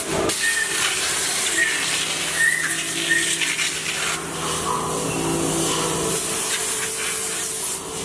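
Compressed-air blow gun hissing steadily as it blasts the hot keypad mold and the molded silicone rubber sheet during demolding, with a steady low machine hum underneath.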